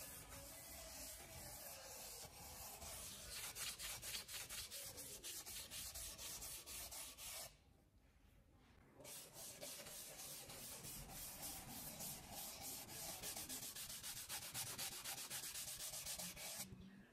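Pine wood being sanded by hand in quick, even back-and-forth strokes. The rubbing pauses for about a second and a half partway through, then resumes and stops just before the end.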